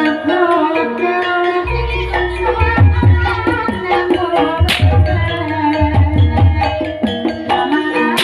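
Javanese gamelan music: metallophones sound held, ringing notes over repeated low kendang drum strokes, with a sharp clash about four and a half seconds in.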